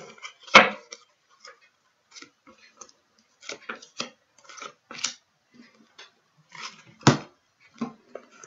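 Tarot cards being handled: shuffled, laid down and gathered on a cloth-covered table, giving an uneven run of soft clicks and taps. Two louder slaps of cards come just over half a second in and about seven seconds in.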